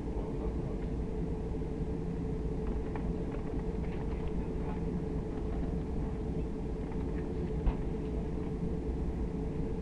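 Airbus A340 cabin noise while taxiing: a steady low rumble from the engines and rolling aircraft, with a steady hum running through it. A single sharp knock about eight seconds in.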